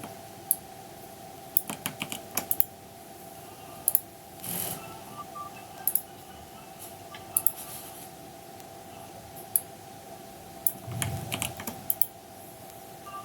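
Irregular sharp clicks and taps, some in quick clusters, over a steady hum.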